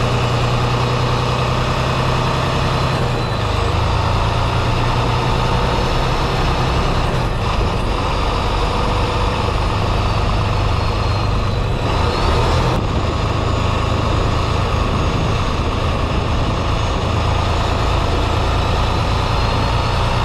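Semi-truck's diesel engine running steadily as the tractor drives slowly, with a low hum and road noise; the engine note shifts a few seconds in.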